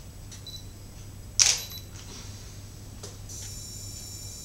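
DSLR camera shutter firing: one sharp click about a second and a half in, with fainter clicks before and after it. Near the end a faint, steady high-pitched whine sets in.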